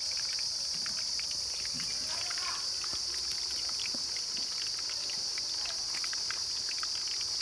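Steady, high-pitched chorus of insects chirring without a break, with scattered faint ticks underneath.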